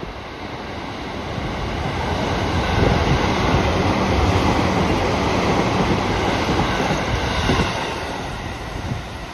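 A JR East E257 series 500 electric multiple unit passes close by. The sound of its wheels on the rails grows louder over the first few seconds, holds, and fades near the end.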